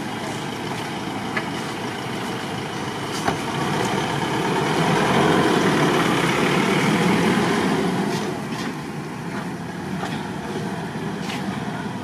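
Nissan Navara pickup truck driving past at low speed on paving stones: its engine and tyres grow louder as it passes close, in the middle, then fade as it moves away.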